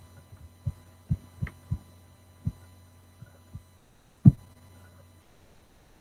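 Irregular dull low thumps, about eight of them, the loudest about four seconds in, over a steady low hum that stops shortly after five seconds.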